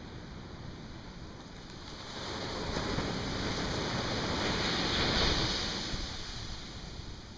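Ocean surf: a wave breaking and washing up the beach, swelling from about two seconds in, at its loudest around five seconds, then fading.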